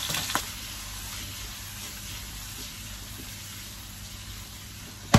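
Halved cherry tomatoes and parsley sizzling steadily in hot olive oil in a non-stick frying pan, with a couple of small clicks about half a second in. A sharp knock right at the end, as the pan is handled.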